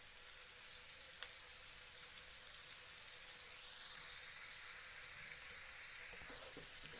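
Butternut squash cubes frying in oil in a nonstick pan, making a soft, steady sizzle, with one sharp click about a second in.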